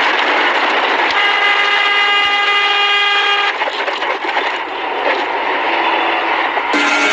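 A loud, steady horn blast of about two and a half seconds over heavy noise, cut off abruptly; another horn tone starts near the end.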